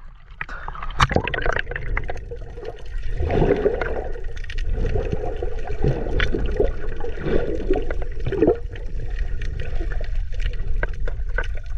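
Sea water heard through a submerged camera: a steady low rumble with irregular bubbling and scattered sharp clicks.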